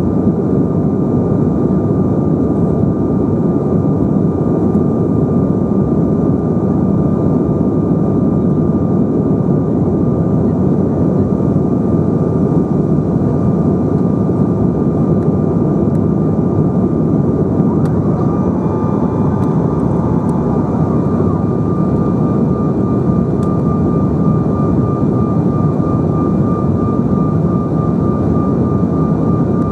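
Steady cabin noise inside a Bombardier CRJ900 in flight: an even rushing hum from the airflow and the rear-mounted GE CF34 turbofans. A thin, steady whine runs through it and starts to waver over the last several seconds.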